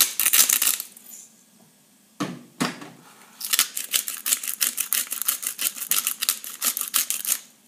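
Salt and pepper mills being twisted over the bowl: a short burst of rapid grinding clicks at the start, two knocks a little after two seconds, then a longer run of rapid grinding clicks that stops shortly before the end.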